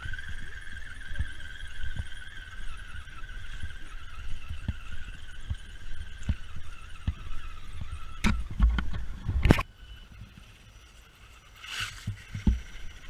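Electric motor and gearbox of a radio-controlled scale crawler truck whining steadily as it crawls, rising in pitch at the start, with scattered low knocks. About eight seconds in comes a cluster of loud knocks, then the whine drops away and returns briefly near the end.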